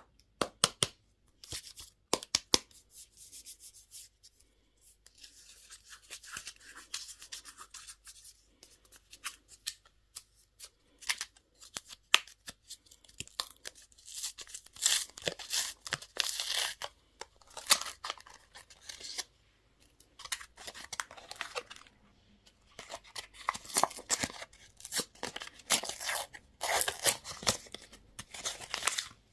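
Candy wrappers being crinkled and torn open by hand: irregular crackling and rustling in bursts, with a few short pauses.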